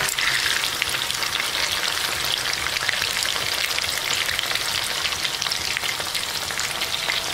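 Coated chicken pieces deep-frying in hot oil: steady sizzling with many small crackles and pops.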